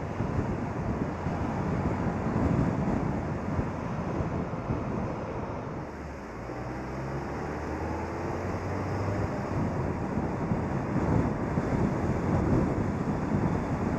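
A moving car's wind and road noise, with gusty wind buffeting on an outside-mounted microphone. About six seconds in the noise eases briefly and an engine note shows, rising a little, before the wind noise builds again.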